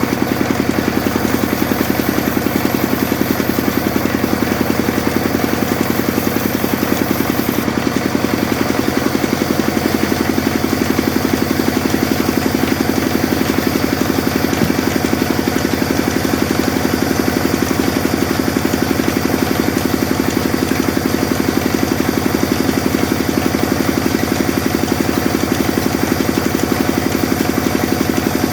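Sawmill machine running steadily, with a fast, even pulse and a slight change in tone about eight to ten seconds in.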